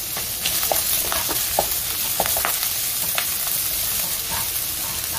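Minced ginger and garlic sizzling in hot oil with shredded dried scallops in a wok, a steady hiss while a spatula stirs them, scraping and tapping against the pan every so often.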